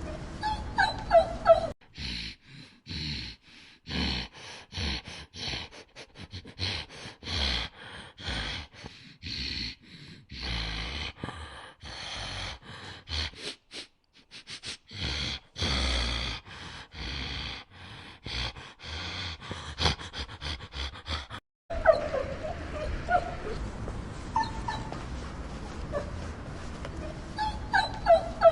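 Young canine pups, wolf cubs or puppies, whimpering and yipping in thin, high squeals at the start and again through the last several seconds. In between is a long, choppy stretch of short sounds broken by hard gaps.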